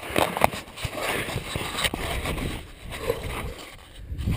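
Handling noise from a hand gripping and turning a small action camera: scrapes, rubbing and light knocks on the camera housing.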